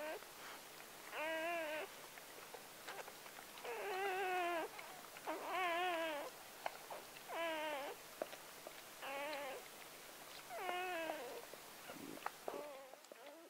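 Newborn Gordon Setter puppy crying: about seven short, mewing squeals with a wavering pitch, each under a second, spaced roughly one to two seconds apart, with faint clicks in between.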